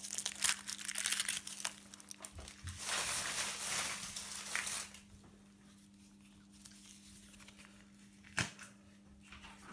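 Foil wrapper of a Kinder Surprise egg being crinkled and torn off, rustling for about five seconds, then a quiet stretch broken by one sharp click near the end. A faint steady hum runs underneath.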